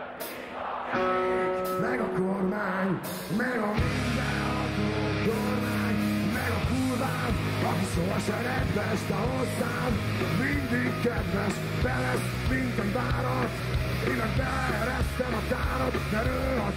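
A live rock band playing with a male singer shouting the vocal. It opens with a few held, sustained notes, then the full band with heavy drums and bass comes in about four seconds in and keeps going.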